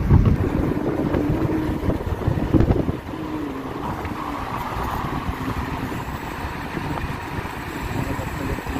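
Car interior noise while driving: engine and road rumble heard inside the cabin. It is somewhat louder for the first three seconds, then settles to a steadier, slightly quieter run.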